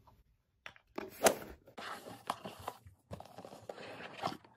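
A ribbon being untied and slipped off a black cardboard gift box, and the box being handled open: rustling and crinkling of ribbon and card with small clicks, starting after a short pause, with one sharp crackle about a second in.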